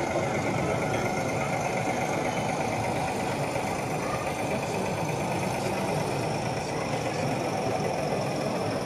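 A steady, engine-like running noise with a faint high hiss, even throughout with no beats or breaks.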